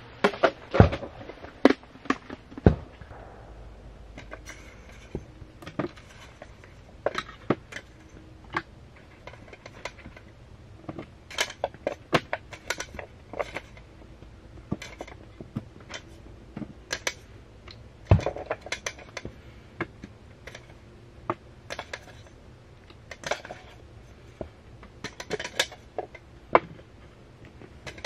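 Irregular clinks and knocks of hard objects being handled, with a few louder knocks near the start and about two-thirds of the way through.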